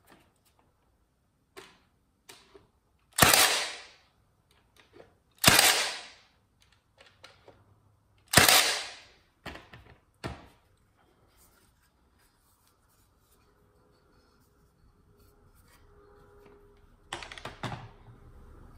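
Cordless nailer firing three nails into wood, one sharp shot about every two to three seconds, with faint clicks of handling between. Quieter clatter near the end as the tool and workpieces are moved.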